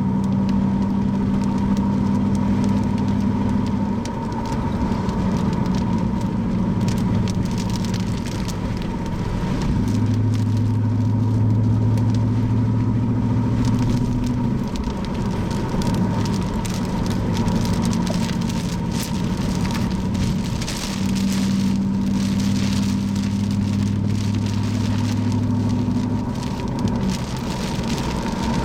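Rain striking a car, many small ticks over a steady noise, with the low hum of the car running underneath. The hum holds a pitch for a few seconds, then shifts, and a faint steady high tone runs throughout.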